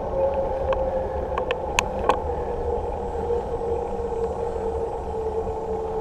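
Riding noise from a bicycle on a paved road, recorded on a GoPro: steady wind and tyre rumble with a hum that slowly drops in pitch, and a few sharp clicks between about one and two seconds in.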